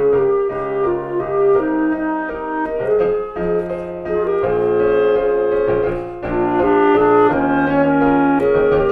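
Clarinet and piano duet: the clarinet holds long, sustained melody notes over piano chords.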